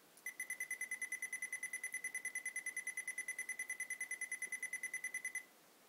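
GMC-4 microcomputer's built-in speaker beeping rapidly, about ten short high-pitched beeps a second. Each beep is a keystroke that the automatic loader simulates on the keypad while it uploads a program. The beeping starts just after the start and stops shortly before the end.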